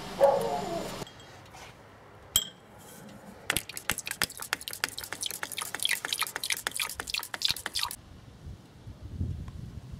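For about the first second, an Opel Corsa 1.2 Twinport petrol engine idles, then cuts off suddenly. After a single clink of glass, a few seconds of rapid clicking and dripping follow as coolant is worked out of the plastic expansion tank with a small hand pump into a drinking glass.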